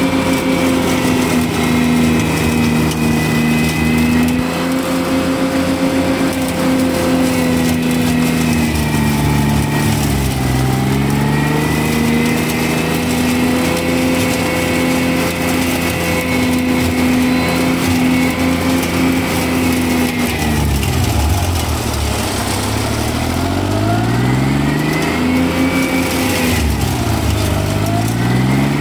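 Steiner 430 tractor engine running hard while its front Ventrac flail mower cuts tall weeds and brush. The engine's pitch dips about ten seconds in and pulls down more deeply a few times in the last ten seconds, bogging under the load of heavier growth, then recovers.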